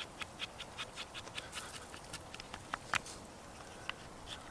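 Knife blade scraping shavings off a stick of fatwood: a run of faint, short scratches, a few a second and unevenly spaced.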